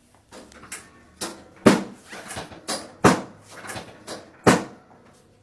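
Chiropractic adjustment on a patient lying face down: a run of sharp thumps and clacks from thrusts on the back and the treatment table, three loud ones about a second and a half apart with lighter knocks between.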